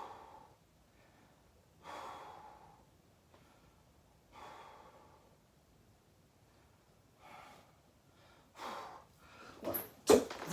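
A person breathing heavily while resting between sets of burpees: long audible breaths about every two to three seconds, then several quicker, louder breaths near the end.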